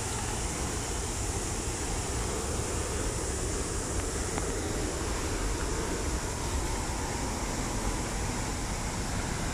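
Steady roar of rushing water from Okere Falls, a waterfall on the Kaituna River, heard as an even, unbroken noise.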